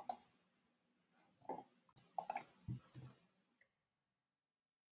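Faint computer mouse clicks: a sharp double click at the start, then a few softer clicks and taps about one and a half to three seconds in.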